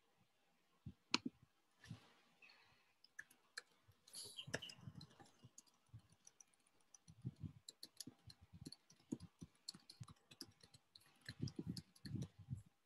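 Near silence broken by faint, irregular clicks and light taps, coming more often in the second half.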